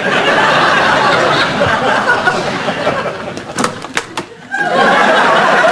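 Studio audience laughing in two long swells, with a brief lull and a few sharp knocks in between.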